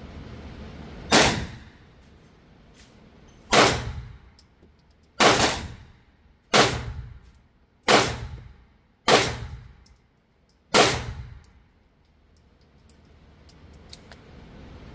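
Seven single gunshots, fired one at a time about one to two seconds apart, each with a short ringing tail.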